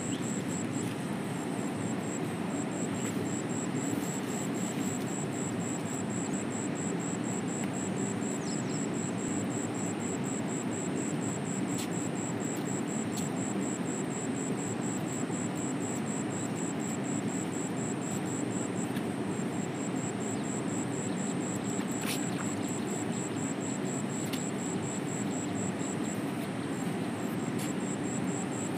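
Steady rush of river water flowing past rocks, an even, unbroken noise, with a high, fast-pulsing trill above it and a few sharp clicks.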